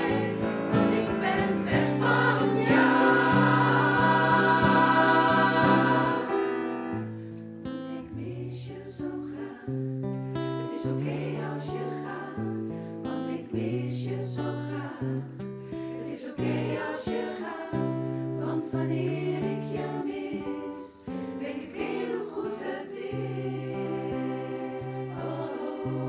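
Choir singing with guitar accompaniment. A loud, full passage runs for about the first six seconds, then the choir drops to a softer passage over plucked guitar.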